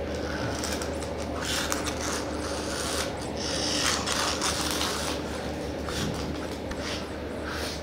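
A cat scratching and rustling at a toy: irregular rasps in clusters, thickest about a second and a half in and again near the end.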